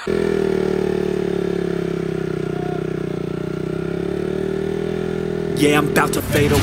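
Motorcycle engine idling steadily, starting abruptly. About five and a half seconds in, music with a beat comes in over it.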